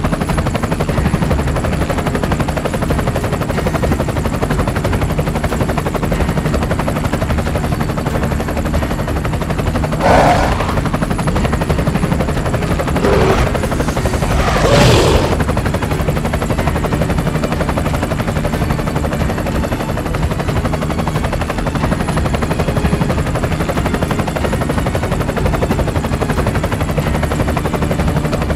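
Helicopter rotor and engine noise, steady and loud throughout, with a few louder sweeping surges around the middle.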